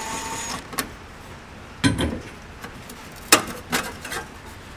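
Cordless DeWalt impact driver running briefly while it takes out a burner-cover screw, and stopping about half a second in. Then several hard metallic clunks and clinks as parts and the driver are set down on the refrigerator's cooling unit.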